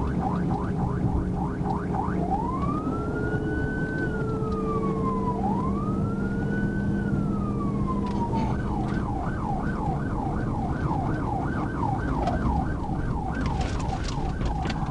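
Police car siren in yelp mode, a fast warble of about three sweeps a second. A few seconds in it switches to two long wails that each rise and fall, then goes back to the fast yelp. Steady road and engine noise of the patrol car at highway speed runs underneath.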